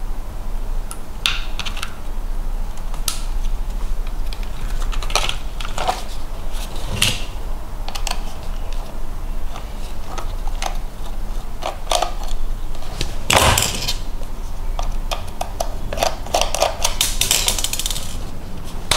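Scattered clicks and taps of hard plastic being handled: the parts of a 1/16 scale RC buggy and its pistol-grip transmitter, with a louder knock about two-thirds through and a quick flurry of clicks near the end. A steady low hum runs underneath.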